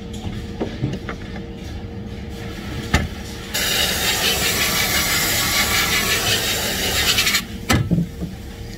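Compressed-air spray gun spraying: a loud, steady hiss that starts abruptly about three and a half seconds in, runs for about four seconds and cuts off sharply. Before and after it come clicks and knocks from rubber hoses being handled on a wooden jig.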